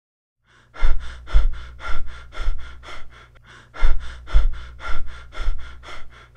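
Human breathing demonstrating Biot's breathing pattern: after a short silence, a run of quick, sharp breaths about two a second, a brief pause, then another run of rapid breaths, the irregular apnea-and-rapid-breathing pattern associated with brain injury. A low hum runs under the breaths.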